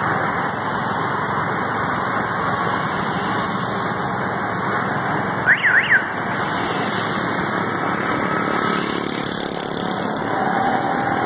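Steady rush of wind and road noise while travelling along a road, with a brief high warbling chirp that rises and falls twice about halfway through.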